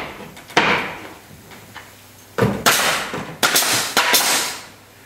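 Pneumatic nail gun firing nails through timber cladding boards into a wooden frame. Each shot is a sharp bang with a hiss of air. There is one knock about half a second in, then a quick run of shots from about two and a half seconds in.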